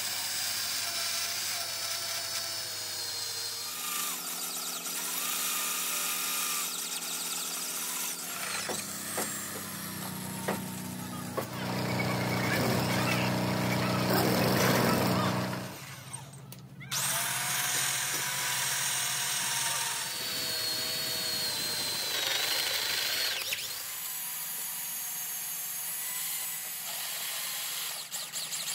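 Power tools running in a truck-building workshop, with a steady motor whine. The sound changes abruptly every few seconds and is loudest a little before the middle.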